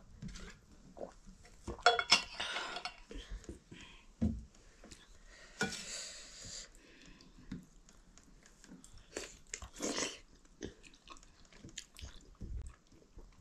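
Eating sounds from a meal of maize dhido and chicken: chewing, with irregular clicks and clinks of plates and utensils, the loudest clatter about two seconds in.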